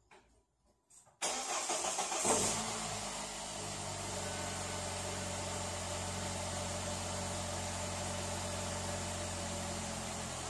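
Car engine starting up about a second in, then settling into a steady idle.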